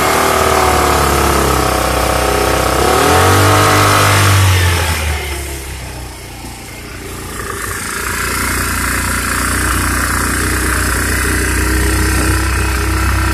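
Small engine of a Generac portable generator running right after starting on choke. Its speed swings up and down for the first few seconds, then it settles into a steady run.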